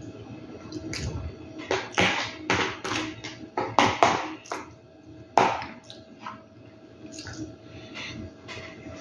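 Close-up mukbang eating sounds: wet chewing and lip smacking on spaghetti and boiled egg, with a spoon working in the pot. A run of sharp wet clicks comes between about two and six seconds in, the loudest just past five seconds.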